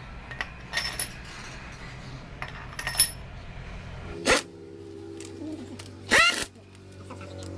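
Light metallic clinks of small steel engine parts or tools being handled, several of them ringing briefly, followed by two louder clattering bursts about four and six seconds in.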